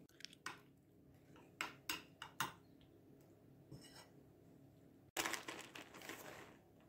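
Light clicks and taps of kitchenware, a bowl and utensils knocking against dishes, while egg mixture is poured over vegetables in a glass baking dish. About five seconds in, a sudden burst of hissy noise begins and lasts about a second and a half.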